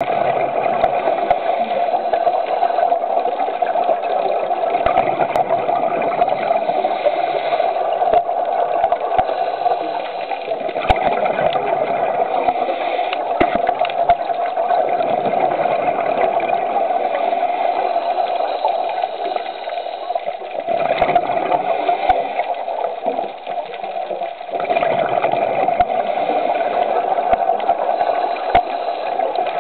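Steady underwater rushing and gurgling from scuba regulator breathing and exhaled bubbles, heard through a dive camera's housing, with a few sharp clicks scattered through it.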